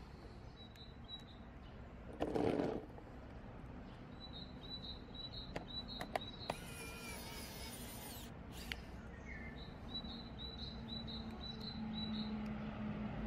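Small birds chirping in quick repeated runs of high chirps, with a short rustle about two seconds in and a few sharp light clicks around the middle.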